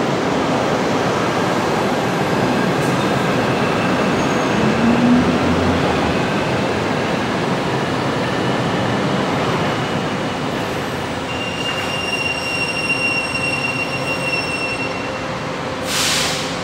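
Monorail train moving along the station platform on its rubber tyres: a steady running noise with a brief rising motor whine about five seconds in and thin high tones later on. A short burst of hiss near the end.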